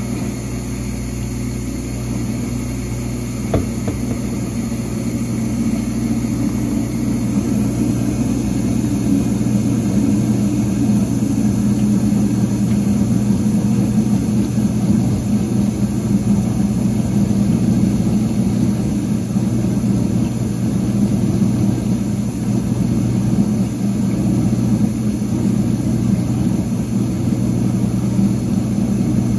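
Whirlpool DU3003XL-0 dishwasher's motor and pump running with a steady low hum, swelling slightly over the first several seconds. A single light click about three and a half seconds in.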